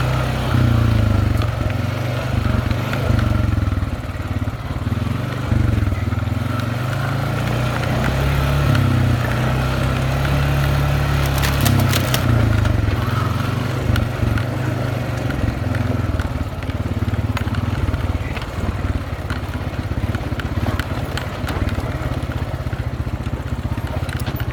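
Honda utility ATV's engine running steadily at low speed while the quad rides over a dirt and rock trail, with a short cluster of sharp knocks about halfway through.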